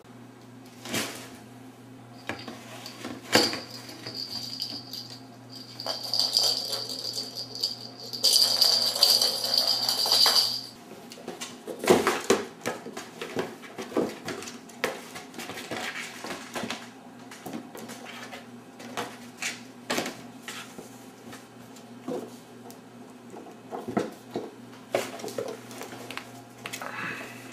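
Kitten playing with a cardboard soda-can case on a wooden floor: irregular light knocks, scratches and rattles as it paws and pushes at the box. A louder scratchy hiss lasts a few seconds partway through.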